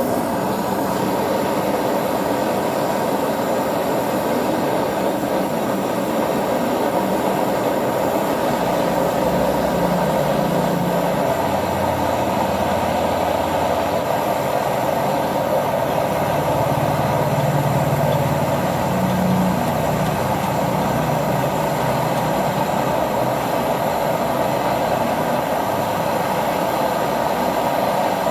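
LG refrigerator compressor running, freed from being seized, giving a steady, even mechanical hum and rush.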